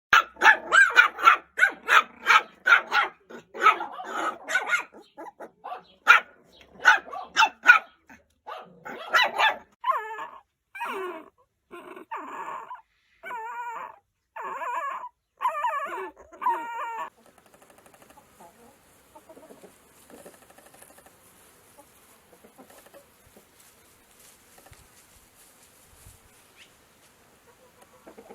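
Dog barking in quick, loud runs of about two barks a second, followed by a string of shorter calls that waver in pitch. These die away to faint sounds about seventeen seconds in.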